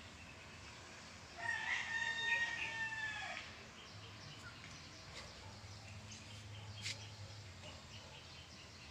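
A rooster crowing once, a single call about two seconds long that starts about a second and a half in. A brief sharp click follows later.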